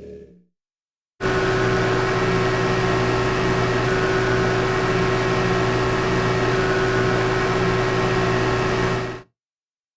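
Motorcycle engine running at steady, unchanging revs for about eight seconds, with a constant hum and a rushing noise. It starts abruptly about a second in and cuts off shortly before the end.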